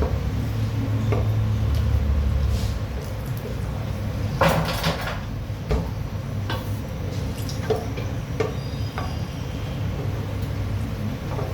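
Kitchen clatter of pots, dishes and utensils being handled, knocked and set down, with a short burst of clattering about four and a half seconds in, over a steady low hum.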